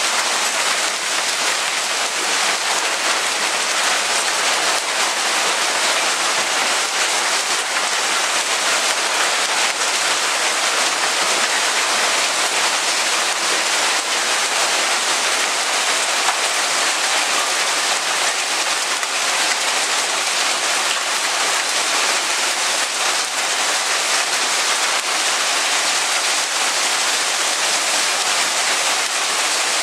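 Heavy hail falling steadily onto the grass, a dense, even hiss of countless small ice impacts that keeps up without a break.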